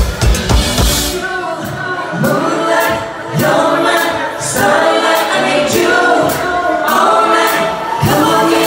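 Live band music: a few heavy drum kit hits, then about a second in the drums drop out and several voices sing together over the band.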